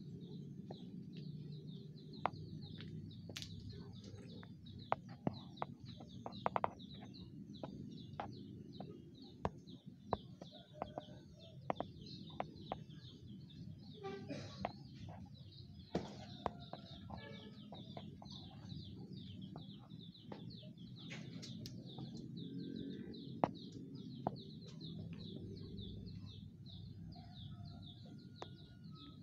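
Birds chirping and calling: a continuous rapid high chirring with a few short clearer calls, over a steady low rumble and scattered sharp clicks.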